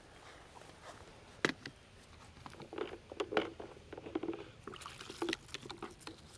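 A scrub brush working over a stone headstone in short, irregular scratchy strokes, after one sharp click about a second and a half in.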